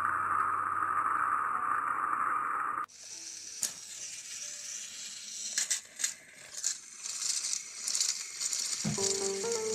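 Battery-powered Thomas & Friends toy train motor whining steadily, cut off abruptly about three seconds in. Then plastic toy trains rattle and click along plastic track over a hiss. A melody starts near the end.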